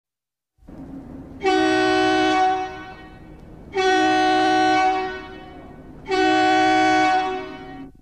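A loud multi-tone horn, like a train-style air horn, blown three times. Each blast lasts about a second, with a low rumble underneath.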